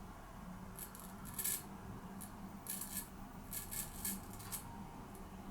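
C.V. Heljestrand lather-catcher straight razor scraping through three days' stubble in a series of short strokes, shaving against the grain on the chin.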